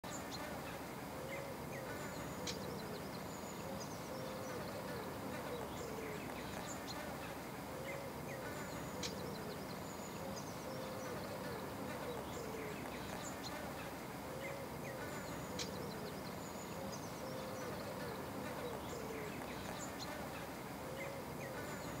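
Outdoor countryside ambience: a steady background hiss with small birds chirping and short animal calls every second or two, and a low insect-like buzz.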